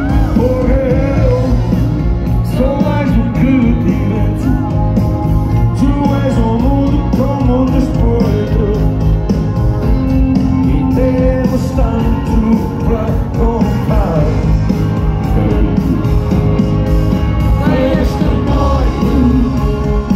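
Live rock band playing loudly with singing over it, recorded from within the audience.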